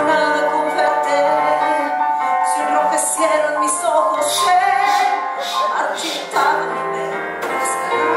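A woman singing a slow song over instrumental accompaniment, holding long notes with vibrato.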